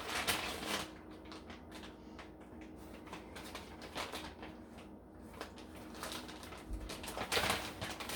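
Food containers and packaging being handled and moved about in a fridge: irregular light clicks, taps and rustles, with a louder clatter about seven seconds in.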